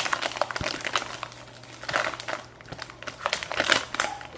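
A SunChips chip bag crinkling and crackling in irregular bursts as it is handled and tipped up to the mouth, loudest right at the start.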